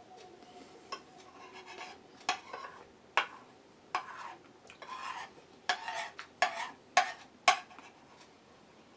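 Cutlery clicking and scraping against a plate while pancake is cut and eaten, in scattered sharp clinks, the loudest near the end.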